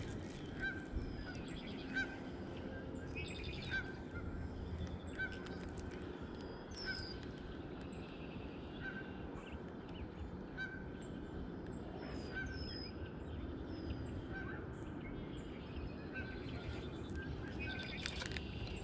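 Birds calling: a short call repeated every second or two, with higher chirps now and then, over a steady low background noise.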